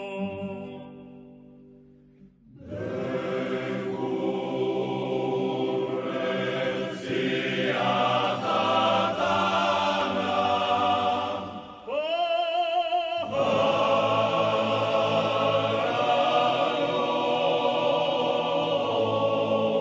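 Group singing of Sardinian mutos: several voices hold chords together, die away in the first two seconds and come back in. About twelve seconds in, a lone voice with a wide vibrato glides up and holds for a moment before the group joins again.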